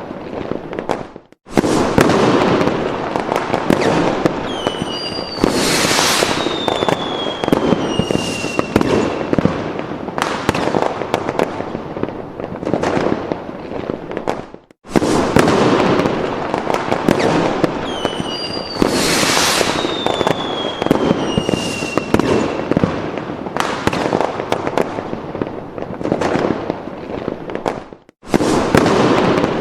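Fireworks sound effect: dense crackling and popping bursts with several whistles falling in pitch, repeating as a loop about every 13 seconds with a brief dropout between repeats.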